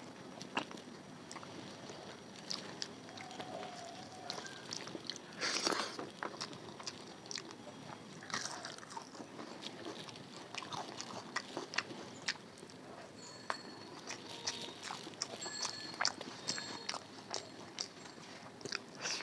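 Close-miked eating sounds: chewing, with frequent irregular wet mouth clicks and smacks and a louder rustle about five seconds in.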